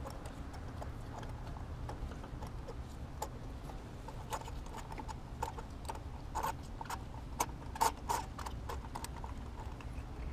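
Irregular light clicks and clinks of a socket wrench and extension being worked in the spark plug wells of a Honda 2.4 L i-VTEC four-cylinder during spark plug removal, over a low steady hum.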